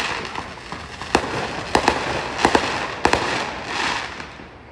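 Fireworks going off: a string of sharp bangs over a dense crackling hiss, which dies away near the end.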